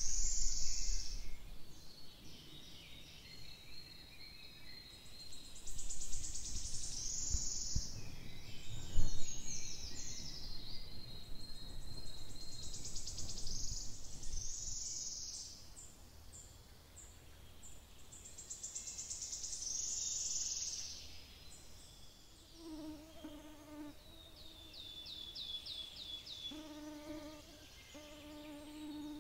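Songbirds sing short high phrases every few seconds in a leafy forest, with one fast run of notes near the end. From about three-quarters of the way through, a flying insect buzzes close by with a low drone that comes and goes.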